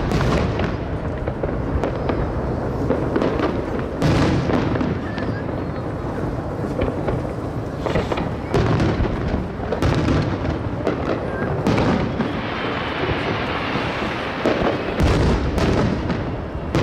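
Aerial fireworks bursting with repeated sharp booms, several seconds apart at first and then closer together near the end, over a continuous low rumble of further shells.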